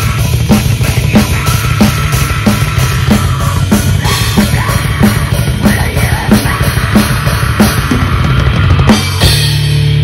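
Heavy metal music led by a drum kit: a fast, dense bass drum under a sharp snare hit about every two-thirds of a second. About nine seconds in the regular hits stop and a steady, heavy low sound takes over.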